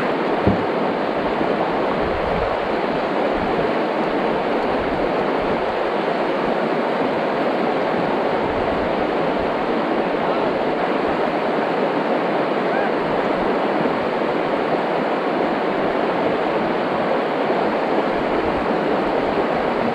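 Shallow river running over a stony bed, a steady rush of water over the rocks.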